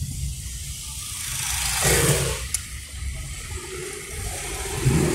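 Car engine rumble and road noise heard from inside a moving car, with a vehicle passing close by about two seconds in. The engine grows louder near the end.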